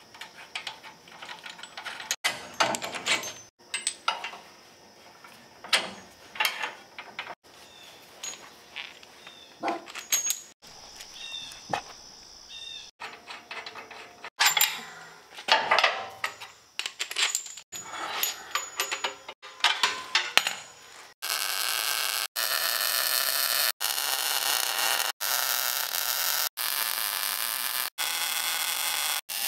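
Clinks and clanks of steel suspension parts being unbolted and handled on a truck frame. About two-thirds of the way through, a MIG welder starts its steady, louder hiss as the brackets are full-welded, broken by brief gaps.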